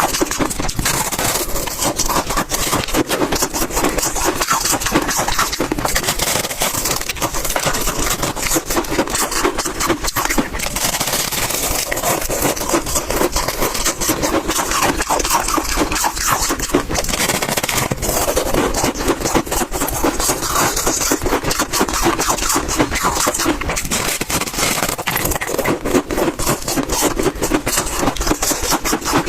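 Close-miked chewing of big chunks of refrozen freezer frost: dense, continuous crunching and crackling with squeaky grinding as the ice is bitten and crushed.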